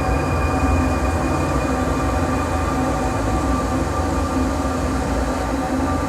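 Live drone / noise music: a dense, sustained wall of distorted sound over a heavy low rumble, with a few steady held tones, the highest of them fading out in the first couple of seconds.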